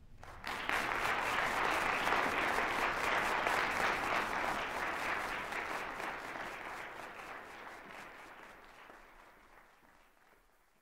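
Audience applauding, breaking out suddenly about half a second in, holding strong for a few seconds, then dying away gradually.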